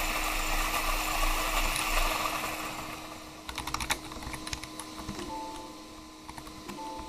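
A steady hiss fades away over the first few seconds. Then comes typing on a computer keyboard: a quick, uneven run of key clicks as a debugger command is entered.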